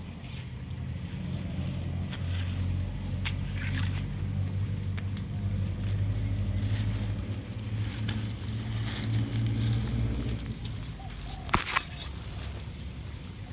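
An engine running steadily with a low hum, building up and then fading away near the end, followed by a couple of sharp knocks.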